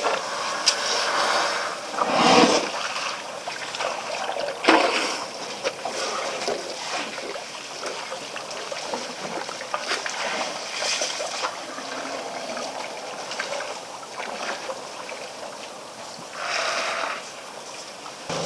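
A herd of African elephants drinking at a waterhole close to the microphone: steady splashing and trickling of water from their trunks. A few louder bursts of noise come about two seconds in, about five seconds in and near the end.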